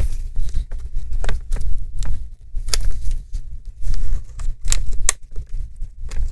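Plastic screen bezel of an Asus laptop being pried at its corner: irregular sharp clicks and scrapes of plastic, over low bumps of the laptop being handled.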